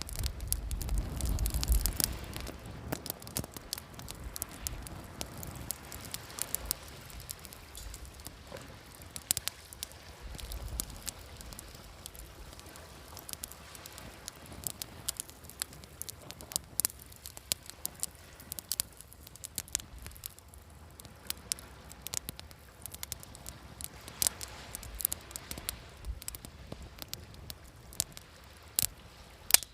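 Wood campfire crackling and popping, with irregular sharp snaps throughout. Beneath it, waves wash in as a low swell, loudest at the start and again about ten seconds in.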